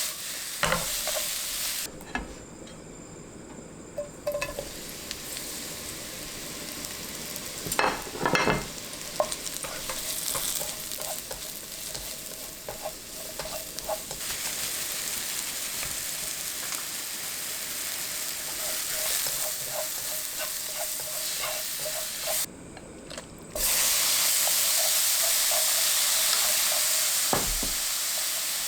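Food sizzling in hot oil in a frying pan while it is stirred, with clicks and scrapes of a utensil against the pan, clustered about eight seconds in. The sizzle falls away briefly twice and is louder over the last few seconds.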